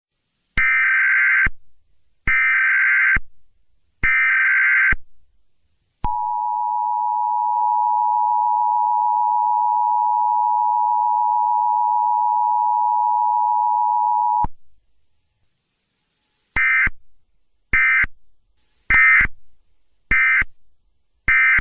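Emergency Alert System broadcast. Three screeching SAME data header bursts are followed by the two-tone attention signal, held steady for about eight seconds. After a short gap with no spoken message, five short data bursts come about a second apart, as an end-of-message code would, in an EAS test gone wrong.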